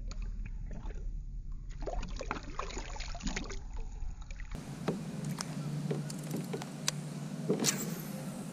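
Small splashes and trickles of water with light clicks and knocks around a kayak. About four and a half seconds in, a steady low hum starts under occasional sharp clicks.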